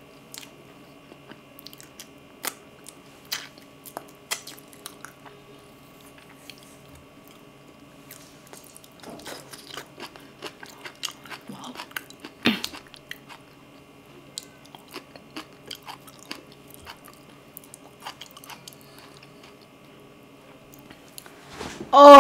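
Close-miked mouth sounds of eating boiled potato and braised kimchi: chewing with many small wet clicks and smacks, one sharper click about halfway through. It ends in a loud vocal 'ah'.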